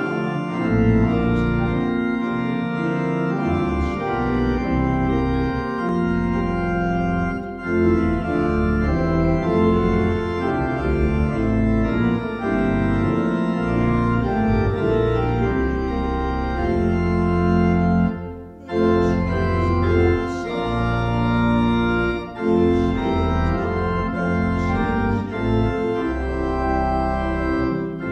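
Organ playing a hymn tune in full held chords, with a short break between phrases about two-thirds of the way through.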